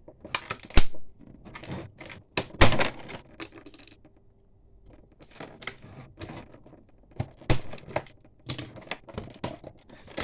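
Stiff plastic blister packaging and cardboard being handled and pulled apart, giving a run of irregular sharp crackles and clicks, with a short lull about four seconds in.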